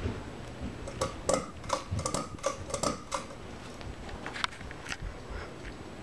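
Hunter Fremont 52-inch ceiling fan running, with a quick run of light, slightly ringing clicks and ticks about a second in and a few more near the end.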